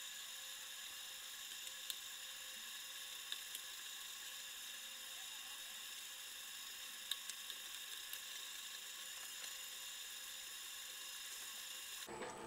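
Faint, steady whine of an IM 5S spiral dough mixer's electric motor running while it kneads flour and water into a rough dough, with a few light ticks.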